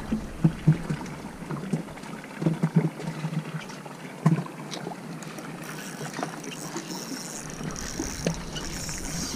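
Scattered small knocks and clatter aboard a fishing boat at sea, over a steady hiss of water and wind that grows brighter about halfway through.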